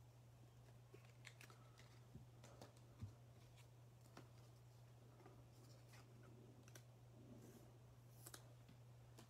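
Near silence: faint scattered clicks and light handling noises of trading cards being picked up and moved on a tabletop mat, over a low steady hum.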